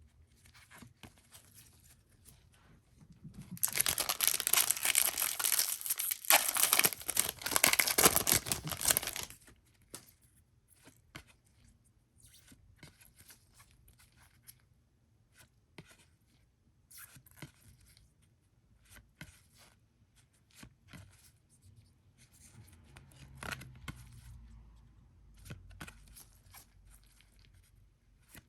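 A trading-card pack wrapper being torn open, a loud ripping that lasts about six seconds. Soft rustling and light clicks of cards being handled follow.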